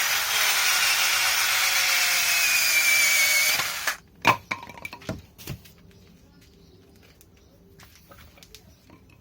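Cordless drill boring through wood to finish a cut, its motor pitch sagging slightly under load, then stopping about four seconds in. A few light knocks follow.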